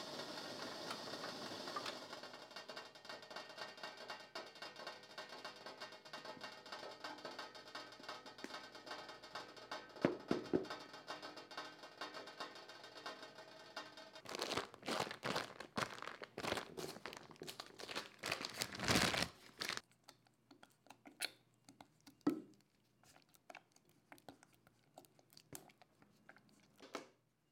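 Steady hiss of a bamboo steamer working over a gas burner. Then a loud spell of crinkling and rustling as the parchment paper holding the steamed red rice-flour dough is handled. Near the end, a silicone spatula scrapes and presses the sticky dough in a metal bowl with soft, sparse sounds.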